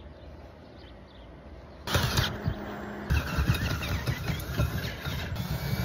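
Ryobi cordless drill starting about two seconds in and drilling into a metal bracket to widen its bolt holes. It begins as a steady whine, then turns rough and uneven about a second later.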